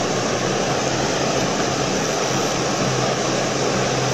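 Water pouring over a concrete river weir, a steady rushing noise with no breaks.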